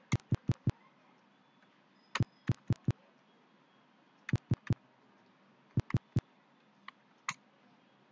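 Computer keyboard keystrokes: short bunches of three to five sharp clicks, one bunch every second or so, then two softer clicks near the end.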